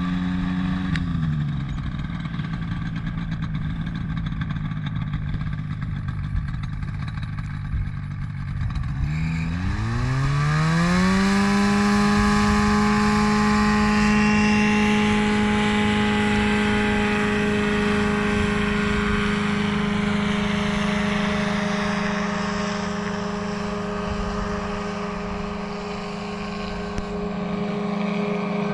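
Engine of an ultralight tow plane for aerotow hang-glider launches. It runs low at first, with its pitch easing down about a second in. About nine seconds in it climbs steeply to full power and then holds a steady drone: the takeoff run and climb-out towing a hang glider.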